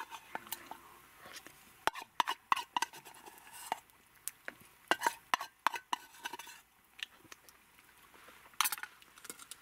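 A spoon scraping and clinking against a metal camping cup and pot, scooping up the last of a helping of curry. The clinks come in an irregular run for a few seconds, then stop, with one more short clatter near the end.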